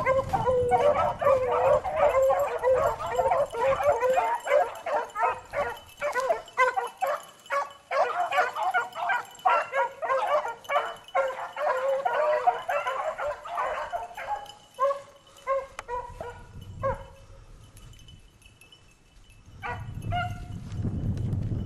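A pack of beagles baying on a rabbit's trail, many voices overlapping. After about fourteen seconds the cry thins to scattered bays and goes nearly quiet. Near the end a few more bays come over a low rustle.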